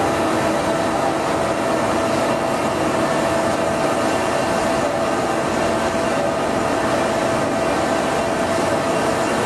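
O-M VTLex3000 CNC vertical boring mill running, its large rotary table turning a ring-shaped workpiece against the tool: a steady machine noise with a steady tone held through it.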